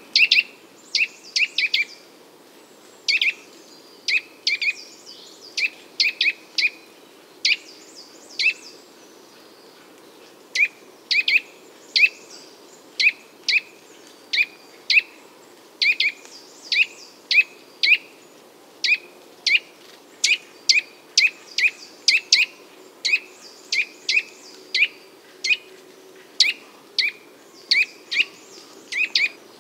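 A small bird chirping over and over: short, sharp chirps, about one to two a second, in uneven runs.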